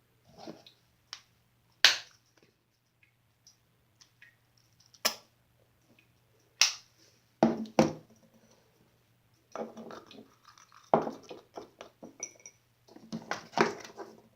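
Glossy slime being squeezed and poked: a few sharp pops, then longer bursts of crackly, clicking squishes that grow busier near the end.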